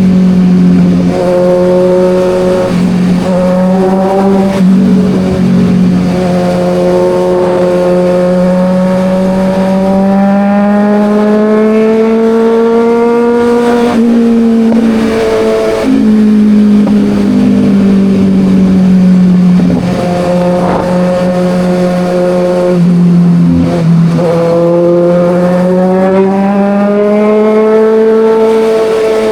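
Kawasaki Ninja 1000's inline-four engine pulling through the gears on the road, its pitch climbing and falling slowly over several seconds at a time, with a few short breaks where the note jumps as gears are shifted. A steady rush of wind and road noise sits underneath.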